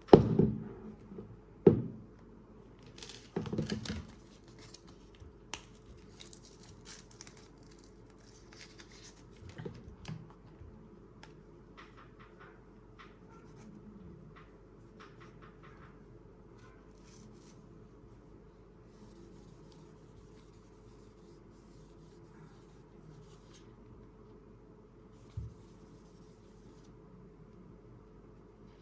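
Handling noises while a vinyl skin is applied to a phone: two sharp knocks near the start, then rubbing and scattered small clicks, settling into faint scratching with one more knock near the end.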